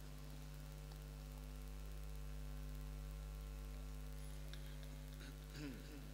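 Steady electrical mains hum from the microphone and sound system during a pause in the recitation. Faint voices begin about five and a half seconds in.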